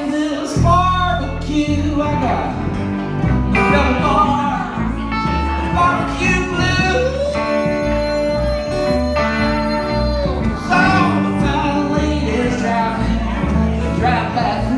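Live blues band playing: acoustic guitar, electric guitar and upright bass, with a steady bass line and one long held note about halfway through.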